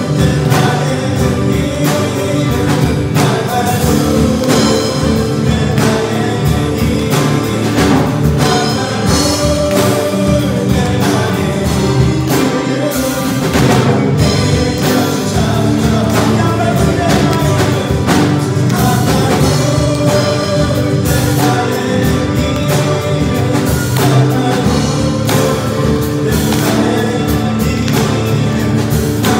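Live worship band playing a hymn: acoustic guitar, drum kit, bass and keyboard, with voices singing over them.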